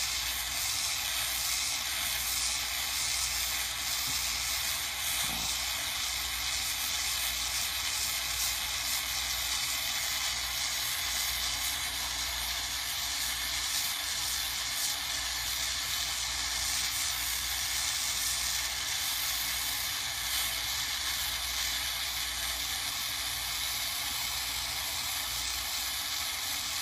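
Gas torch flame hissing steadily as it heats gold in a ceramic melting dish, turned up to a bigger flame to melt a gold pendant.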